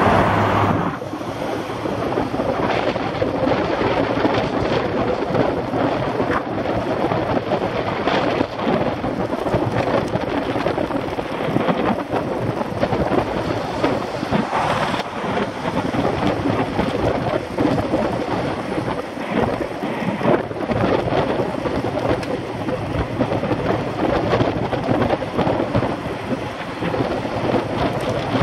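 Wind buffeting the microphone of a handlebar-mounted camera on a road bike ridden at about 21–22 mph in strong wind: a steady rough noise that rises and falls without a break.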